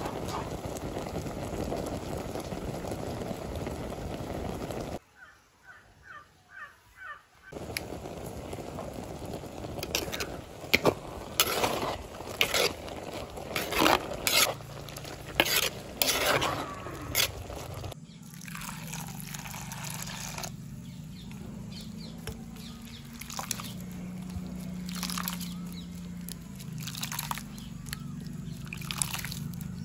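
A pot of sambar (dal, vegetables and tomatoes in water) bubbling on the boil, then hands squeezing and kneading grated coconut in water to press out coconut milk, with wet squelches and splashes over a steady low hum.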